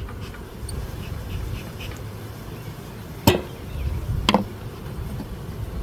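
Two sharp wooden knocks about a second apart, as a hive tool works the wooden hive box open, over the steady hum of honeybees.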